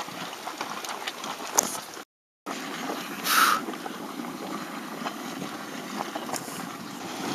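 Geyser-basin hot spring vent gurgling and hissing steam: a steady rush with scattered small splashes. The sound drops out for a moment about two seconds in, and a short louder hiss comes about a second later.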